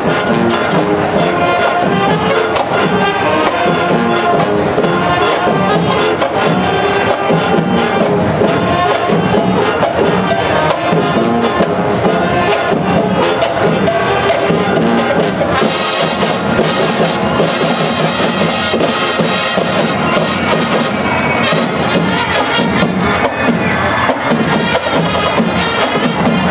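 Marching band playing a brass-led piece over a regular drum beat, growing brighter and fuller in the middle.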